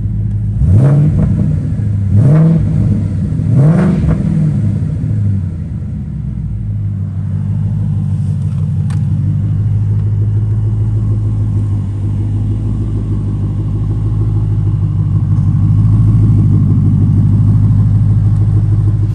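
2012 Mustang GT's 5.0 Coyote V8 through an off-road X-pipe with no mufflers, blipped three times in quick succession in the first few seconds, each rev rising and falling back. It then settles into a steady low rumble.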